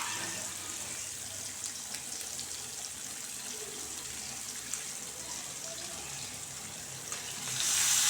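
Sardines frying in hot coconut oil in a pan: a steady sizzle with small scattered crackles, growing louder near the end.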